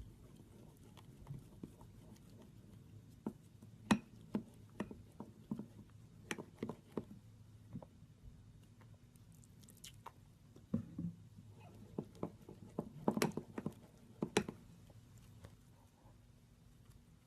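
Slime being squished and pressed by hand: irregular sticky pops and clicks, with a cluster of louder pops near the end.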